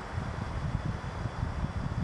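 Wind buffeting the microphone in irregular gusts, a low rumble that grows stronger.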